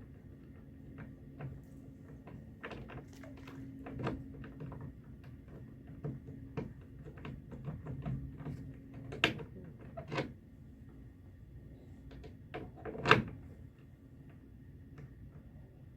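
Scattered knocks and clicks, with sharper clacks about 9 and 10 seconds in and the loudest about 13 seconds in, over a steady low hum.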